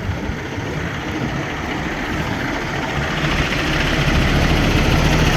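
An engine running steadily, slowly growing louder, with a steady low hum coming in near the end.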